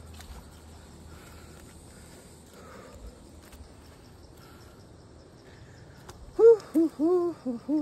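Quiet outdoor ambience with a faint high insect trill and a few light scuffs. About six seconds in, a run of loud short pitched calls begins, each rising and falling, several in quick succession.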